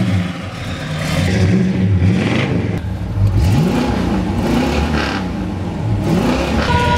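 1966 Pontiac GTO's 389 cubic-inch V8 running and being revved in place several times, the pitch rising and falling with each blip of the throttle.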